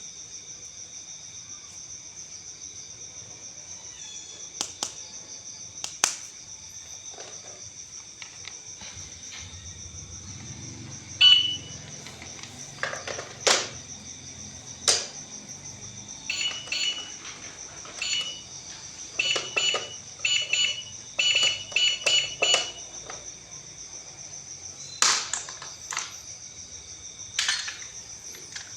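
Hard plastic toys being handled, with scattered sharp clicks and knocks. Through the middle comes a run of short electronic beeps, one for each press, over a steady high-pitched electronic whine.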